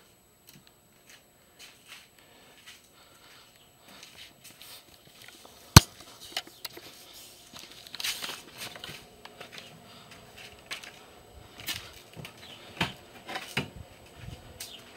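Footsteps and camera handling noise: scattered knocks, scuffs and rustles of someone walking out through a doorway, with one sharp knock about six seconds in that is the loudest sound.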